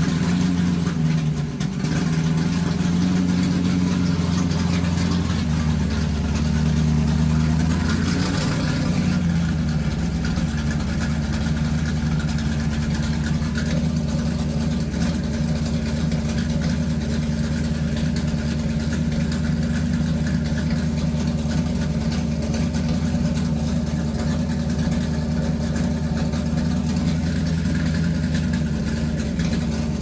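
A motor running loudly with a steady low hum. Its pitch wavers over the first several seconds, then holds even for the rest.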